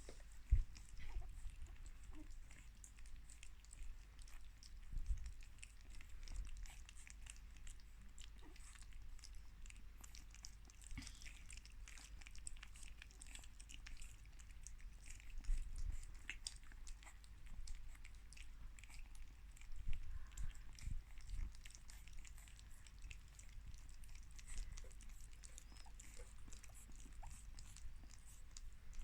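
Three-week-old Boston Terrier puppies eating their first meal: a faint, steady stream of small wet smacks and clicks of mouths at food, with a few louder bumps now and then.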